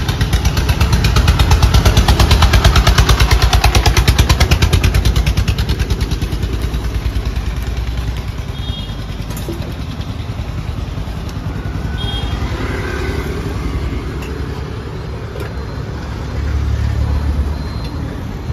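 A small motor vehicle engine running close by with a rapid, even putter, loudest over the first few seconds and then fading into general street traffic noise.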